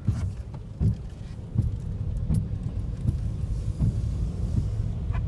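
Car running at low speed, heard from inside the cabin: a steady low engine and road rumble with a few small knocks.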